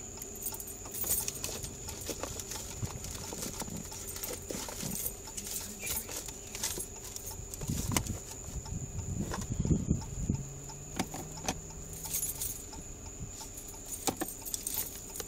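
A bunch of keys jangling and clicking as they are handled, with louder thumps and rustling about eight to ten seconds in. A faint steady high whine runs underneath.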